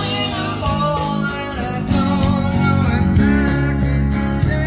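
Guitar-led recorded music playing through a pair of Magnepan 3.7i planar magnetic dipole panel speakers, heard in the room.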